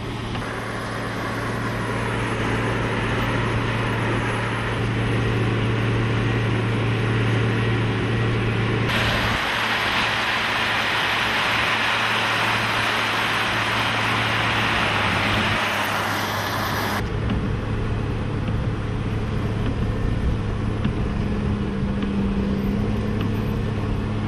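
Truck engine running steadily while driving, with a loud rushing noise that comes in suddenly about nine seconds in and cuts off suddenly about eight seconds later.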